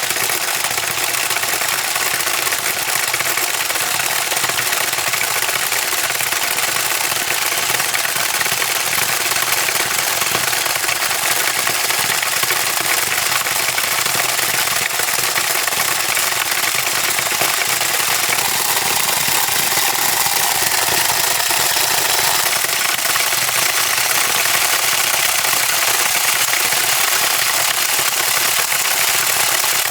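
Small DC motor and plastic gearbox of a toy lizard running from a DC power supply at far more than its battery voltage, making a loud, steady mechanical buzz. A faint tone slides in pitch about twenty seconds in.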